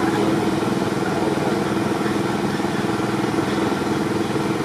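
Steady, even hum of an idling engine.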